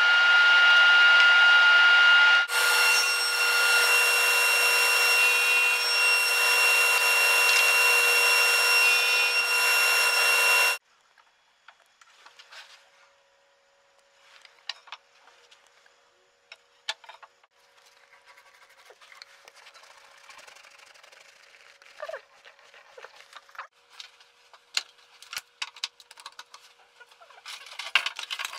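Sliding table saw running, a loud steady whine over noise, which cuts off abruptly about ten seconds in. After that it is quiet, with light scattered knocks and clicks of wood and clamps being handled on a wooden workbench.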